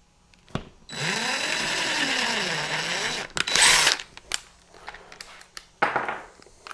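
Cordless drill boring a pilot hole into a wall with a taper bit. The motor runs for about two seconds, its pitch dipping and recovering as the bit bites, then gives a shorter, louder burst. Light clicks of handling follow, and one more brief burst comes near the end.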